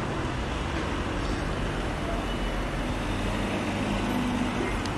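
Steady road traffic noise, an even rumble and hiss with no distinct events.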